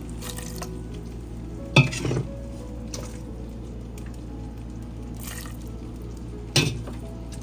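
Duck meat simmering in broth in a stainless steel pot, with a metal utensil clanking against the pot, sharply about two seconds in and again near the end.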